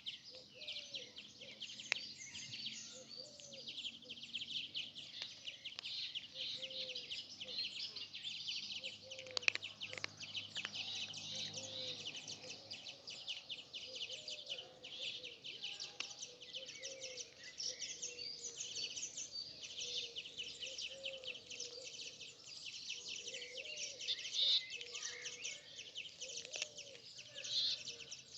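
A dense chorus of many small birds chirping without pause, with a short, lower call repeating every second or two beneath it. A couple of sharp clicks come through, one about two seconds in and a louder one near ten seconds.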